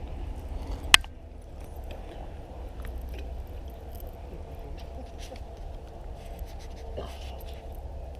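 A single sharp click about a second in, over a steady low rumble and a few faint ticks and scrapes.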